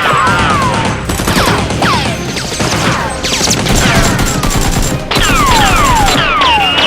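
Rapid automatic gunfire sound effects, a fusillade of shots, mixed with repeated falling whistles. Background music runs under it.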